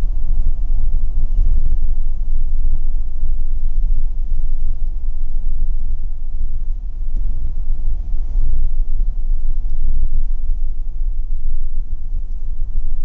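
Steady low rumble of a car driving, its road and engine noise heard from inside the moving cabin.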